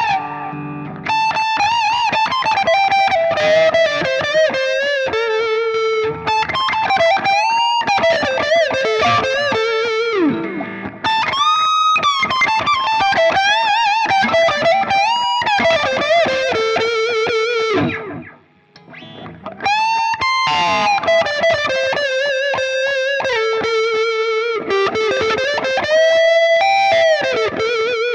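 Overdriven lead playing on a Harley Benton SC-DLX Gotoh electric guitar's neck pickup through a Hotone Ampero One modelling a Mesa Boogie Mark IIC+ amp: single-note phrases with string bends and vibrato, with a short break about 18 seconds in.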